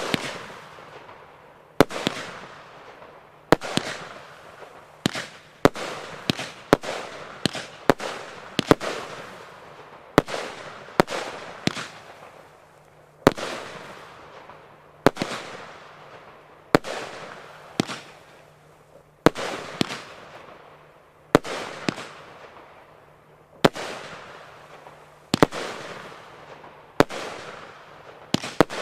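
Consumer firework 'Ammo Crate' firing shot after shot: about twenty sharp bangs at uneven intervals of one to two seconds, each followed by a fading tail.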